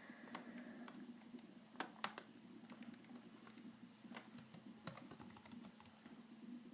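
Faint tapping of computer keyboard keys in short scattered bursts, a few keystrokes around two seconds in and again around five seconds, over a steady low hum.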